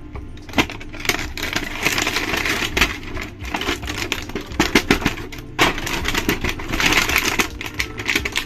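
Plastic toy packaging and action figures being handled: crinkly rustling with many irregular plastic clicks and taps.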